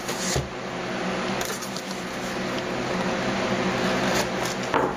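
Small cardboard box being opened and handled by hand: a continuous scraping rustle of cardboard flaps and packaging, with a short knock near the start.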